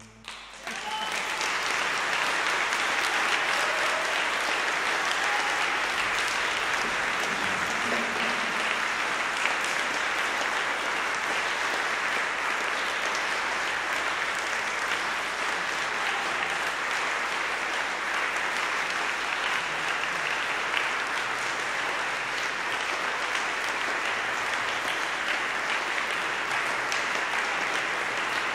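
Audience applauding: the clapping starts about a second in, just as the last chord fades, then keeps up steadily.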